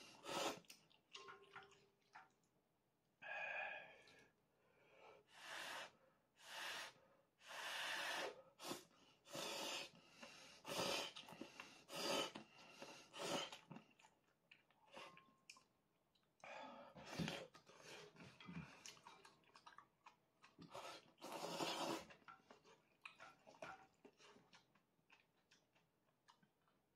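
A person slurping instant ramen noodles in a run of loud sucking slurps, each lasting about a second, with chewing in between. After about 22 seconds only small, quieter clicks and chewing remain.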